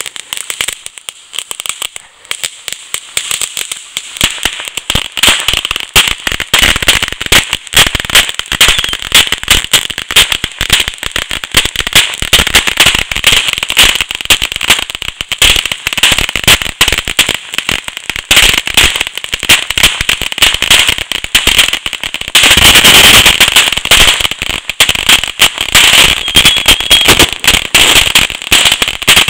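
Fireworks going off in a long, rapid, unbroken string of pops and crackles. About two-thirds of the way through they swell into a solid, loudest burst for a couple of seconds.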